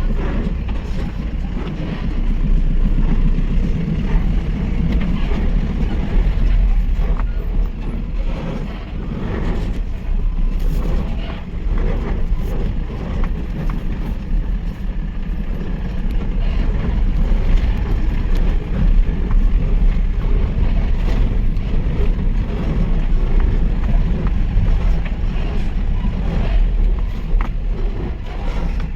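Mahindra pickup truck driving over rough ground: a steady low engine and road rumble, with scattered short knocks.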